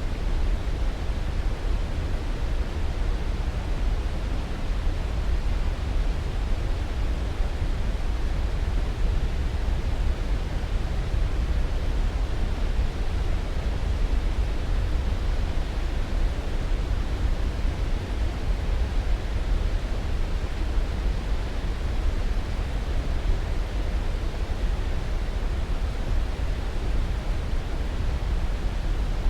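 Steady, unchanging rushing noise for sleep, heaviest in the bass and thinning toward the highs, with no tones, strikes or breaks.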